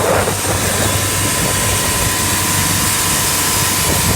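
A boat's 4.2-litre turbodiesel running steadily under way, its drone mixed with the rush of wind and water, with a faint steady whine above it. The engine is on a test run after an injection pump repair.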